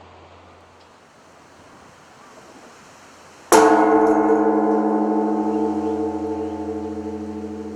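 A large bronze Japanese temple bell (bonshō) struck once by its swinging wooden log about three and a half seconds in. It rings on as a deep, many-toned hum that wavers slightly and slowly fades.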